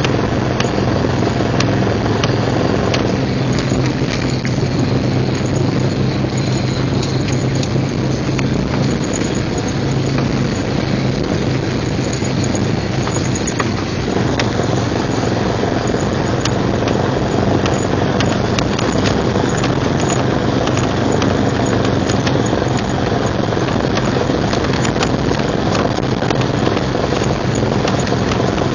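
A 1999 Jeep Cherokee XJ running, a steady drone with many short clicks. It is the grinding noise from the front end that shows up only in 4WD high and low. It has persisted through new front axle U-joints, a rebuilt Dana 30 front differential and a rebuilt front driveshaft.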